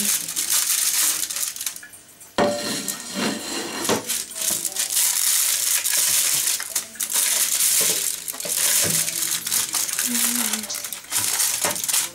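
Aluminium foil crinkling and crackling as a plastic slotted spatula scrapes under a baked whole fish on a foil-lined oven tray. The noise dips briefly about two seconds in, then starts again sharply.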